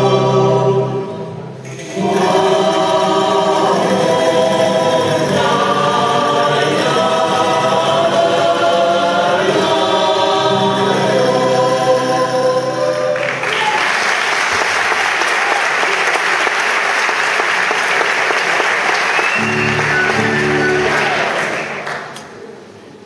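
Dance music with singing, which stops about 13 seconds in; an audience then applauds, and the clapping dies away near the end.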